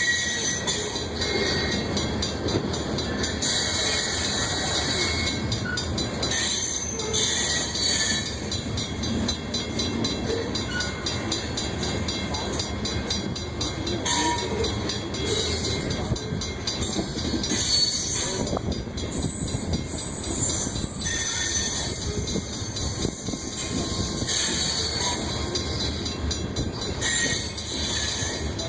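Loaded grain train's freight cars rolling past, a steady rumble of steel wheels on rail with high wheel squeal coming and going every few seconds.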